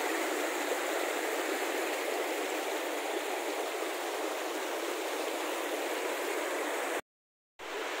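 Fast-flowing stream water rushing steadily, with a brief gap of total silence about seven seconds in.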